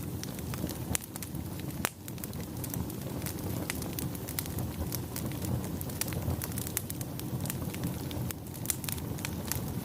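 Fireplace fire burning, a steady low rumble of flame with frequent sharp, irregular crackles and pops.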